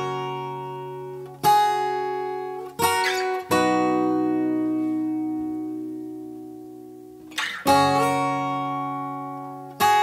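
Acoustic guitar playing slow strummed chords, each left to ring and fade. There are about five strums, and the middle chord is held for about four seconds.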